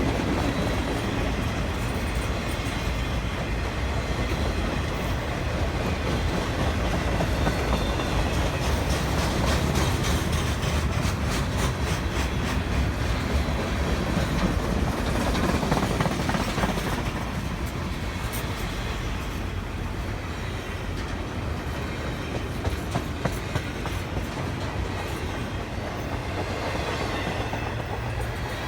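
Steady rumble of a train running on rails, with a run of rhythmic wheel clicks over the rail joints in the middle.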